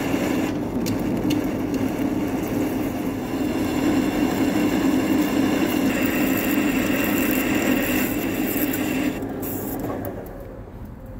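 Metal lathe turning a steel hydraulic cylinder rod while a carbide insert tool cuts the weld off the end of the inner tube, a steady grinding cutting noise over the spindle's running. About nine seconds in, the bright cutting sound stops and the lathe runs on more quietly.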